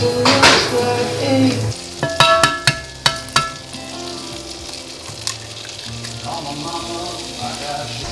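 Food sizzling in a frying pan on a stovetop, with a few sharp ringing clinks from about two to three and a half seconds in.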